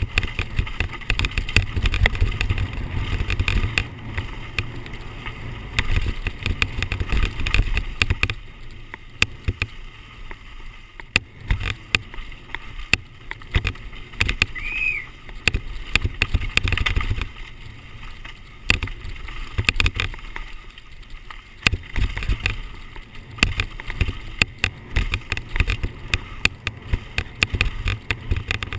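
Downhill mountain bike running fast over a rough dirt trail: wind buffeting the microphone as a heavy low rumble, with constant rattling and sharp clicks from the bike over bumps. A brief whistle sounds about halfway through.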